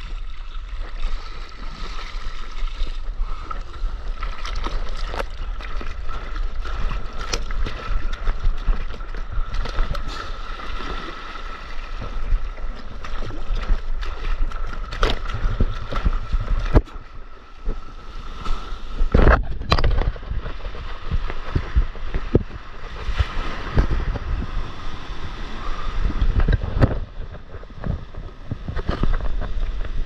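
Water splashing and rushing close around a surfboard as a small wave is paddled for, ridden through whitewater and washes into the shallows, with irregular splashes throughout and the loudest surges a little after halfway and again near the end.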